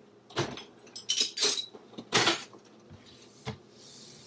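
Metal tools and engine parts clinking and clattering as they are handled and set down, several sharp clanks in a row, followed by a soft hiss near the end.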